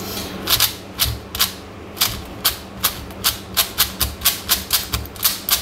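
Plastic MoYu WeiSu 4x4 speed cube, unlubricated and straight out of the box, being turned by hand: its middle slice clacks turn after turn, a few spaced clicks at first, then about three or four a second. The slice turns without catching on the inner pieces.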